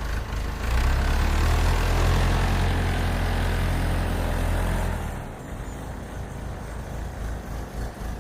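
An engine running with a steady low hum, loud for the first several seconds, then dropping away about five seconds in and continuing more faintly.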